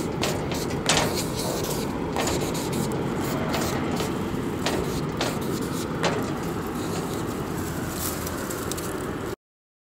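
Steady low rumble of a moving vehicle, with scattered sharp clicks and knocks over it. It cuts off abruptly a little before the end.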